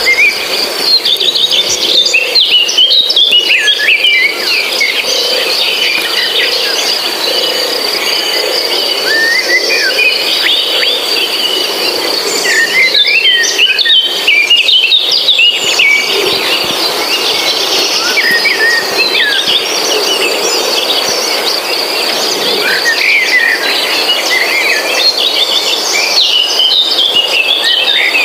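Insects droning on one steady high note, with many birds chirping and twittering over it.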